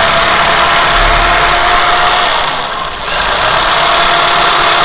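Corded jigsaw sawing through a wooden board, its motor running with the blade cutting. The sound dips briefly about three seconds in, then carries on.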